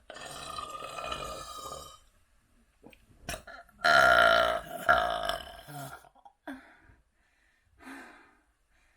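A person burping repeatedly: one burp lasting about two seconds at the start, then a louder, deep burp about four seconds in that lasts about two seconds, followed by two short, fainter ones.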